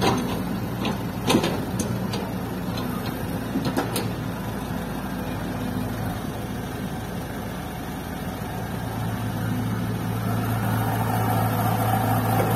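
Diesel engines of a Caterpillar excavator and a waiting dump truck running steadily, with a few sharp knocks in the first four seconds. About nine seconds in, the engine note deepens and grows louder as the excavator lifts a loaded bucket of soil over the truck bed.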